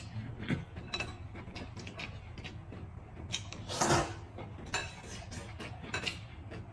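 Eating sounds at a table: chopsticks clicking against a porcelain bowl and plates, and a loud slurp of noodle soup about four seconds in.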